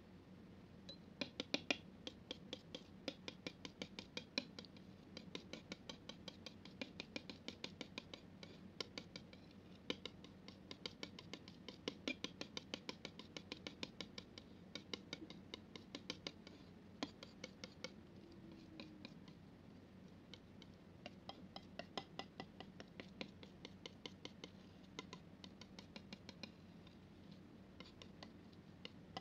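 Palette knife working thick wet paint on a smooth surface, making quick sticky clicks and scrapes, about three or four a second, with a short lull partway through.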